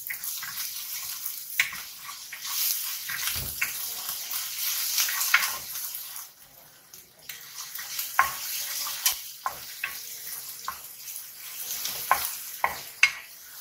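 Minced garlic sizzling in hot oil in a non-stick pan while it is lightly sautéed, stirred with a wooden spatula that scrapes and clicks against the pan. The sizzle drops away for about a second roughly halfway through.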